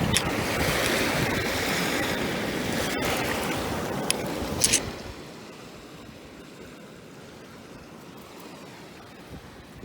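Ocean surf washing on the beach, with wind buffeting the microphone; the rushing noise drops sharply to a quieter hiss about halfway through, after a few brief crackles.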